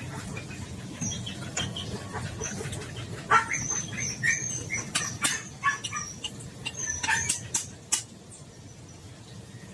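Birds chirping in short high calls, with scattered sharp clicks and knocks; it all goes quieter about eight seconds in.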